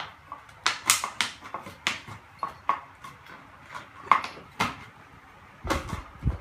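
Beagle chewing and knocking an empty plastic Coke bottle about on a tiled floor: irregular crackles and clatters of the plastic, with a few dull thumps near the end.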